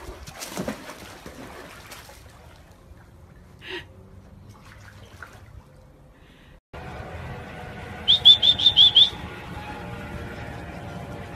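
A dog splashes into a swimming pool, followed by water sloshing. After a cut comes a steadier background noise with a quick run of about six high, sharp squeaks.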